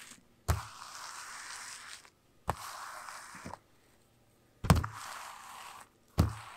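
A small cylinder rolled over fabric on Reflectix to press it onto the sprayed adhesive: four strokes, each starting with a knock as the roller is set down and followed by about a second of rasping as it rolls across the fabric, then stopping abruptly.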